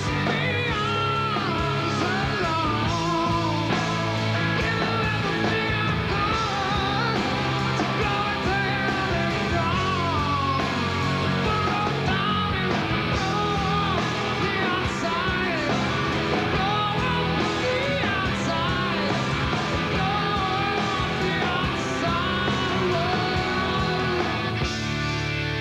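Live rock band playing: a man singing at the microphone over guitars, bass and drums, easing into a quieter, held passage near the end.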